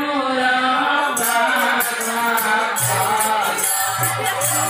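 Devotional chant-like singing accompanying a folk dance-drama. A jingling cymbal rhythm comes in about a second in, and a low drum beat joins near the three-second mark.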